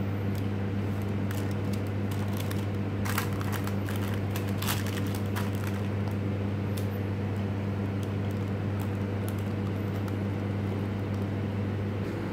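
Steady low machine hum, with a few light clicks about three to five seconds in.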